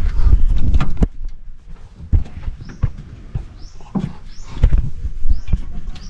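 Hands working rubber hydraulic hoses and the battery in a mini skid steer's engine bay: irregular scraping with clicks and knocks, busiest in the first second and sparser after.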